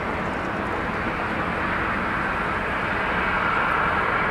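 Jet engines of a Boeing 767-300ER on final approach: a steady rushing noise that grows gradually louder, with a high whine coming up near the end.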